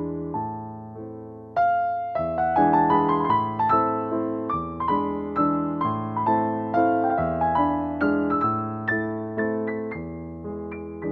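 Background piano music: a gentle melody of notes struck one after another, each fading away, over sustained lower chords.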